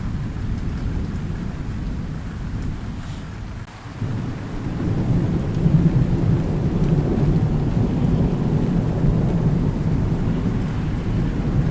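Thunderstorm with rain: a deep rolling thunder rumble fades away, then a new roll of thunder builds about four seconds in and rumbles on, over steady rain.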